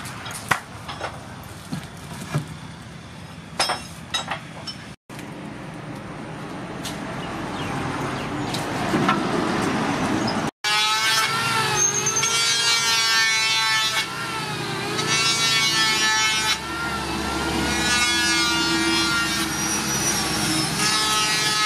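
Wooden poles knocking and clicking as they are handled, then a handheld electric planer running on a wooden pole. Its motor whine dips and recovers in pitch as it bites into the wood.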